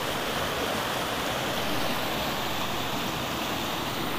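Mountain stream rushing steadily over granite rapids, running high, which the hikers put down to a floodgate opened upstream.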